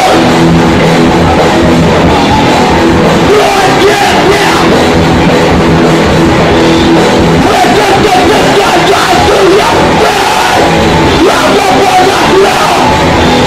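Heavy rock band playing loudly: electric guitars, bass and drums, with a vocalist yelling into a microphone.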